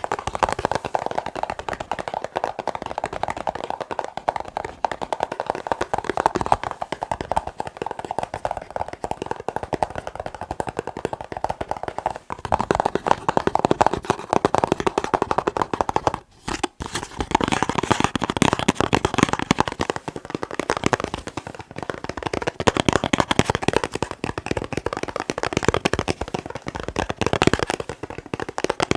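Fast, continuous tapping with fingers on a box, a dense run of quick clicks. After a brief break about sixteen seconds in, the tapping sounds brighter.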